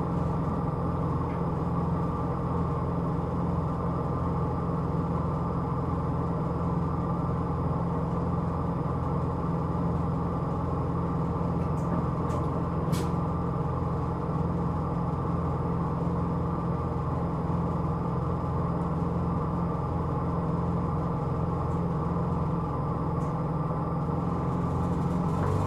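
Diesel engine of a Hino Rainbow II (SDG-KR290J1) non-step bus running at a steady idle, heard from inside the cabin. At the very end the engine note changes and begins to rise as the bus starts to pull away. There is a single sharp click about halfway through.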